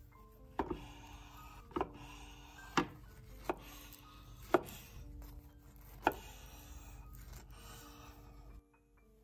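About six sharp knocks on a wooden board, roughly a second apart, like a knife chopping on a cutting board during food preparation, with soft background piano music underneath. The sound cuts off abruptly near the end.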